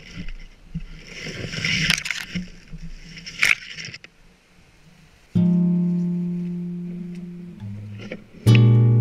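Rustling and brushing of someone pushing through undergrowth, with a sharp crack about three and a half seconds in. Then an acoustic guitar chord is struck and left to ring, and a second chord follows near the end.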